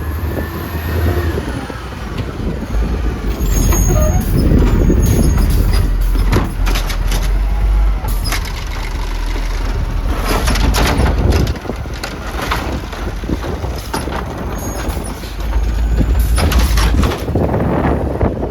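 Garbage truck running, with several short hisses of air brakes. Wind buffets the microphone with a heavy low rumble.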